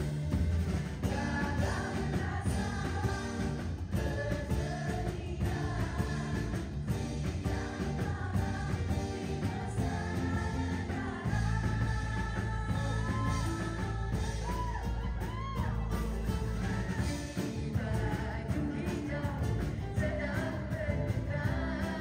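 Pop yeh-yeh song performed live: a woman singing into a microphone over steady backing music, her voice wavering on held notes.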